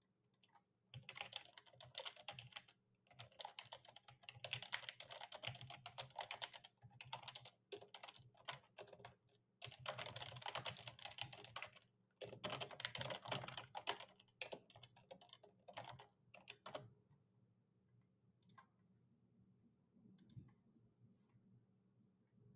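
Faint typing on a computer keyboard in several quick runs with short pauses, then a couple of lone clicks near the end.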